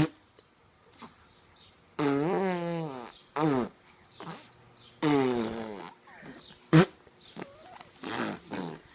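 Silly mouth noises made in play: two long noises with a wavering pitch, about two and five seconds in, with shorter ones between and after, and a sharp pop just before seven seconds.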